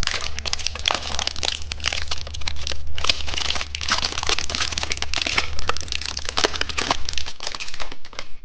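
Plastic candy packaging crinkling and crackling steadily as it is handled and torn open, for about eight seconds.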